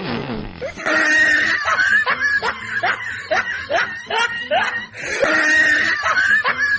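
Snickering laughter in quick repeated bursts, about three a second, over a held high note. The same laugh starts over about five seconds in, as if looped.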